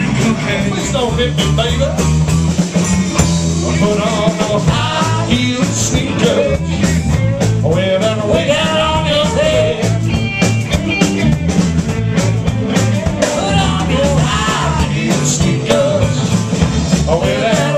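Live blues band playing a song: electric guitars, bass guitar and a drum kit, loud and steady.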